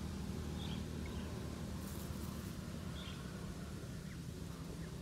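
Outdoor ambience: a steady low hum with a few faint, short bird chirps.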